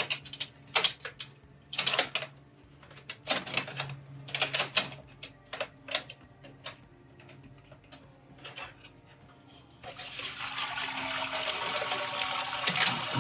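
Scattered metal clanks and knocks from handling the Anvil Foundry's malt basket and ring. About ten seconds in, a steady rush of liquid starts: wort pouring down from the lifted grain basket into the kettle.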